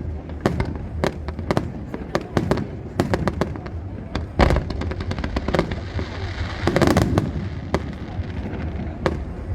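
Fireworks display: a rapid, irregular string of sharp bangs and crackling reports, with one especially loud bang about four and a half seconds in and a thick burst of crackle around seven seconds.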